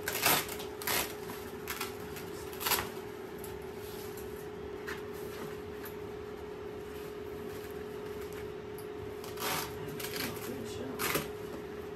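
Hands working the fabric liner and metal frame of a collapsible utility wagon: a few short rustles and clicks in the first three seconds and again near the end, over a steady low hum.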